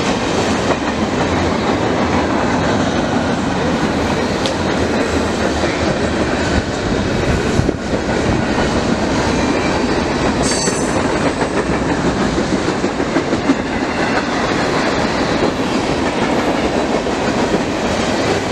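Mixed freight train's cars rolling past close by: a steady rumble and clatter of steel wheels on the rails, with a brief high wheel squeal about ten and a half seconds in.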